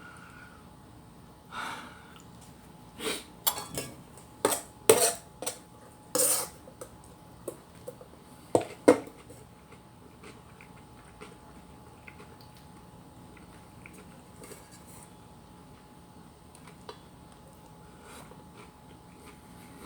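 Metal spoon clinking against a rice cooker's inner pot: a run of sharp clinks in the first half, the loudest around the middle, then only a few faint ticks.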